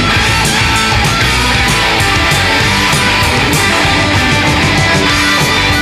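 Loud, distorted electric guitar played through a Marshall 1959HW Super Lead 100-watt valve head into a Marshall speaker cabinet, chugging through a rock riff over a steady pulse of sharp hits.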